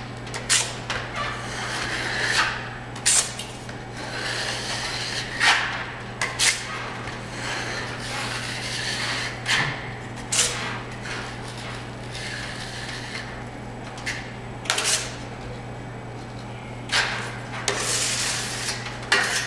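Steel 14-inch flat trowel clinking and scraping against a hawk as joint compound is loaded, alternating with longer hissy scraping strokes as the compound is skimmed across the drywall ceiling. A steady low hum runs underneath.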